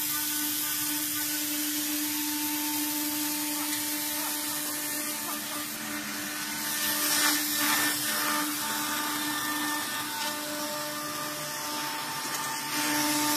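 CNC router spindle running steadily while milling 4 mm aluminium sheet: a held machine whine over a high, hissing cutting noise, a little louder for a moment about seven seconds in.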